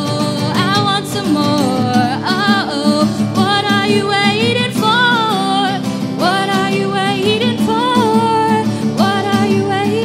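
A woman singing a gliding melody with held, wavering notes into a microphone, over a strummed acoustic guitar. It is a live acoustic duet.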